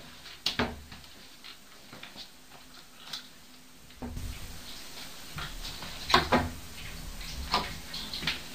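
Irregular sharp knocks and clatter around an apartment, the loudest a cluster about six seconds in; a low rumble starts suddenly about four seconds in and carries on under the knocks.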